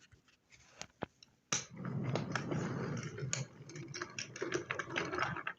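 Wooden toy train rolling by hand along wooden track: sharp clicks at first, then from about a second and a half in a rumble with frequent small clicks that stops near the end.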